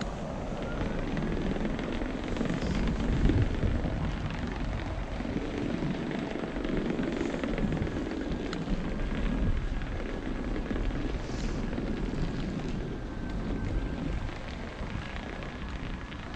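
Wind buffeting the microphone and tyre rumble from an electric unicycle riding along a trail, a steady low rush, with a faint thin whine held high above it.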